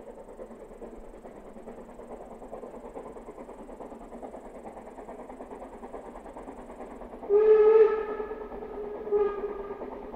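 Harz narrow-gauge steam locomotive whistling twice, a long blast about seven seconds in and a short one near the end, over the running noise of the approaching train, which slowly grows louder.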